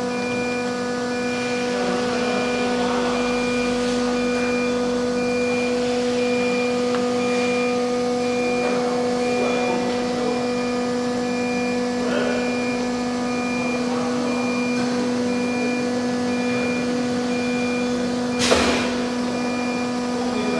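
CNC router running steadily: a constant machine hum with a whine at a fixed pitch and a faint beeping tone over it, and one sharp knock near the end.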